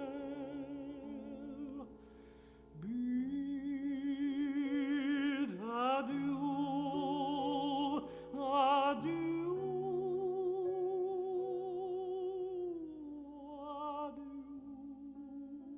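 A solo singer sings a slow song with wide vibrato over soft, sustained accompaniment. The voice breaks off briefly about two seconds in and comes back about a second later.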